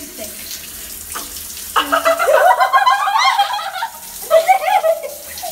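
Shower water running in a tiled stall, with high-pitched girls' voices calling out over it, loudest from about two seconds in and again near the end.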